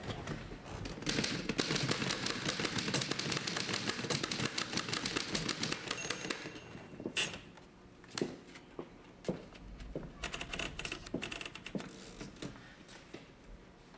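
Office typewriter being typed on rapidly, with a dense run of keystrokes for about five seconds. After that come scattered single clicks and knocks, with a brief flurry of keys later on, fading near the end.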